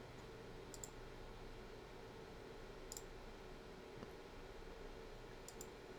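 A few faint computer mouse clicks over a low, steady hum: a double click about a second in, single clicks in the middle, and another double click near the end.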